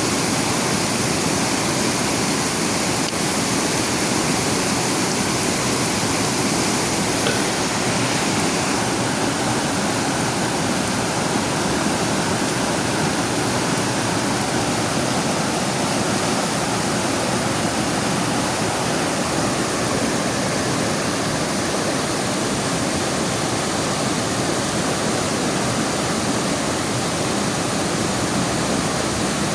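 Heavy rain falling beside a rushing river: a steady, even wash of water noise.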